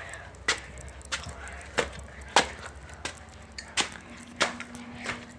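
Sharp knocks repeating at an even pace, about three every two seconds.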